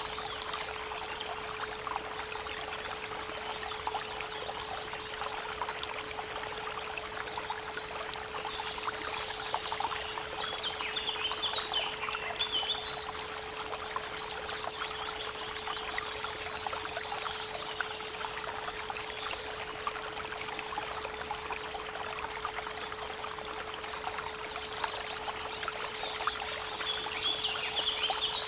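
Creek water trickling and babbling steadily, with a steady 432 Hz pure tone running underneath. Songbirds chirp over the water in short phrases, most busily about ten to thirteen seconds in and again near the end.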